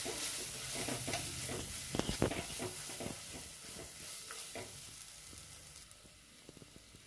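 Wooden spatula stirring and scraping a thick onion-tomato masala in a clay pot, with a light sizzle of the spices frying in oil. The stirring knocks and scrapes stop about five seconds in, leaving only a faint sizzle.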